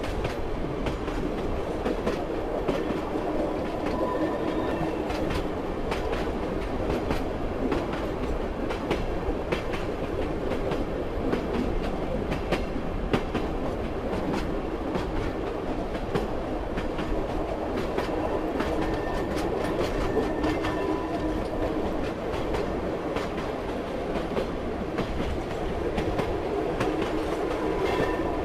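Train running steadily on the rails: a continuous rumble with the clickety-clack of wheels over rail joints and many small rattling clicks.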